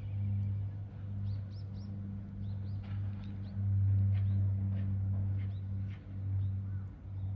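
Small birds chirping in short, quick, high notes, many times over, above a steady low mechanical hum that swells and dips.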